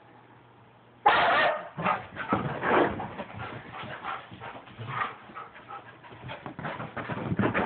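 Huskies vocalizing in rough play: a sudden loud bark about a second in, then an uneven run of short yips, whines and grumbles.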